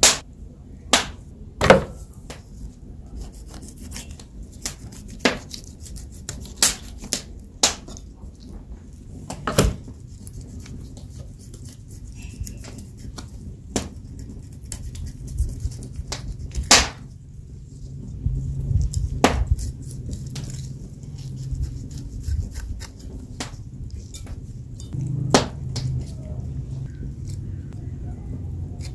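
Knife and fish knocking and tapping on a wooden cutting board as a barracuda is handled and cut open: scattered sharp knocks at irregular intervals, over a low rumble that gets stronger about two-thirds of the way through.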